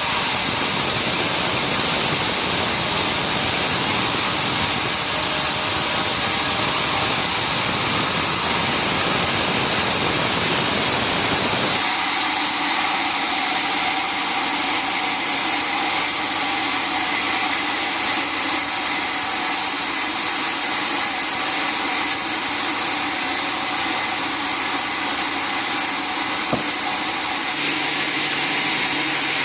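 Sawmill machinery running loudly and steadily with a strong high hiss. About twelve seconds in, the low rumble drops away abruptly and a steadier hum carries on.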